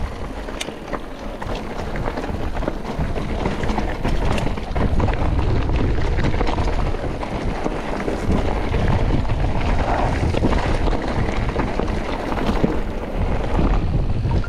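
Wind buffeting the microphone of a camera on a mountain bike riding a rough trail, with constant rumble and scattered knocks and rattles from the bike and tyres on the rocky ground.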